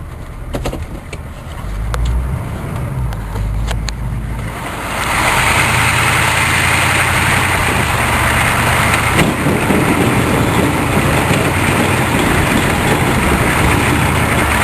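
Plow truck's engine running, with a few clicks at first. About five seconds in it gets suddenly louder and stays there, a steady rushing noise over the engine.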